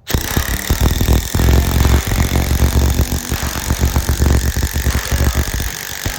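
DeWALT 12V XTREME brushless 1/2-inch impact wrench hammering a 10-inch hex-head lag screw into wood. It starts abruptly with a rapid, continuous rattle of impacts, heaviest through the middle and lighter near the end.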